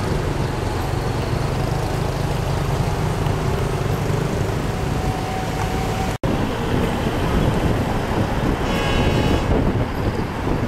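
Steady engine and road rumble heard from inside a moving vehicle, with an instant's dropout about six seconds in. A short high tone sounds briefly near the end.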